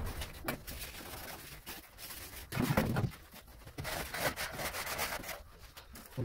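Straightedge scraping and rasping over damp sand-cement floor screed in short strokes, with a louder thump about two and a half seconds in.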